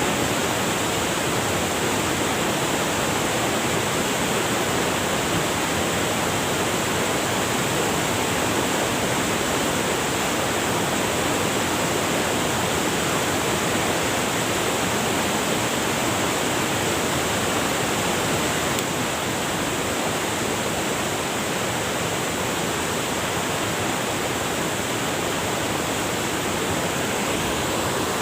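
River water rushing over rocks: a steady, even rush with no breaks.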